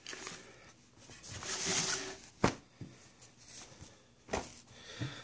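Hands rummaging through items in a cardboard box: rustling of packaging and light knocks, with one sharp tap about two and a half seconds in.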